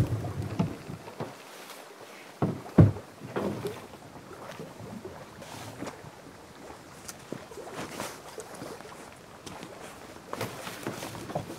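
Camping gear being loaded into a canoe: scattered knocks and thumps of a barrel and pack against the hull, the loudest a pair of sharp thuds about two and a half to three seconds in, with rustling and shuffling steps between them.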